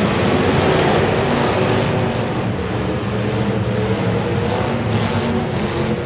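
Demolition derby car engines running loudly and roughly, a little louder about a second in.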